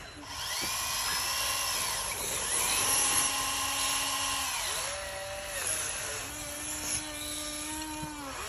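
Electric drive motors and gearboxes of a Huina RC excavator whining as the arm and turntable are worked. There are several long whines in a row, each rising in pitch, holding steady, then falling away as a control is let go.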